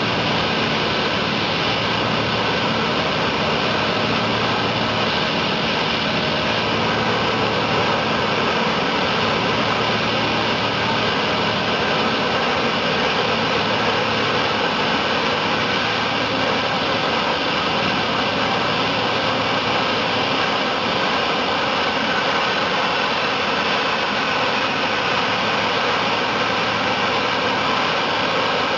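Steady hiss of two high-pressure water jets spraying sideways from a dual-nozzle perforating tool, with a pump engine running steadily underneath.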